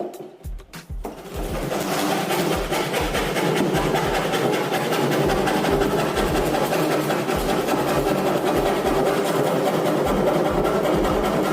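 Electric power tool running steadily on wood, starting about a second in.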